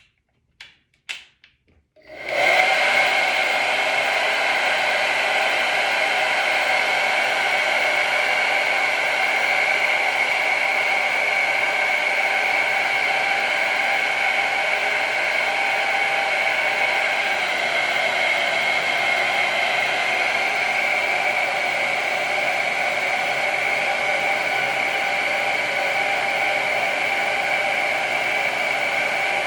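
Handheld hair dryer switched on about two seconds in and blowing steadily, a rush of air with a steady high whine.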